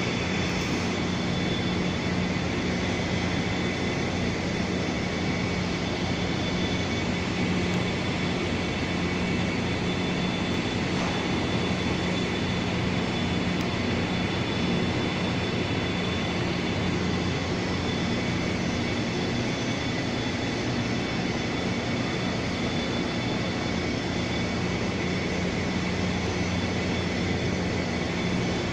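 A steady, unchanging drone: a dense rushing noise with a few constant hum tones in it, like a distant engine.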